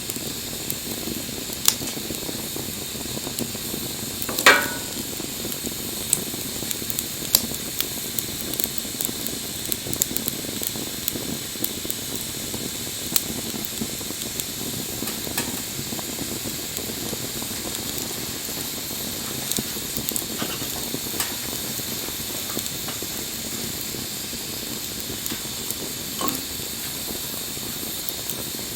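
Wood bonfire burning: a steady hiss with frequent sharp crackles and pops, one louder pop about four and a half seconds in.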